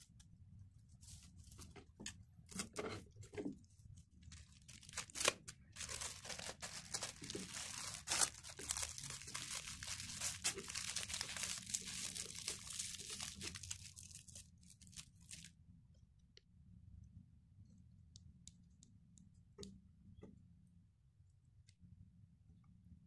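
Clear plastic film crinkling and rustling as a small bundle of parsley is rolled up tightly in it. The crinkling is dense and continuous for about ten seconds, starting about five seconds in, after a few scattered rustles and taps. Afterwards only faint scattered ticks remain.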